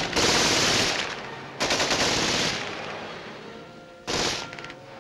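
Bursts of machine-gun fire: two rapid bursts of about a second each, then a shorter burst about four seconds in.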